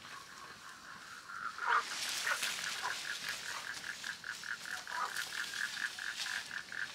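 A rapid, evenly pulsed animal call, about six notes a second, strong from about two seconds in, with a few short falling calls among it. Leafy branches rustle and crackle now and then.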